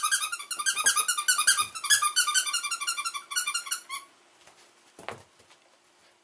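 Squeaker inside a plush dog chew toy squeaking rapidly and repeatedly as a small terrier bites down on it, stopping suddenly about four seconds in. A single short thump follows about a second later.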